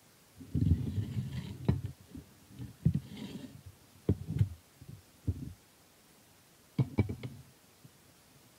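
Dull handling thumps and a few sharp metallic clinks as an aluminium saucepan lid is shifted and lifted off a pan of rice soaking in water.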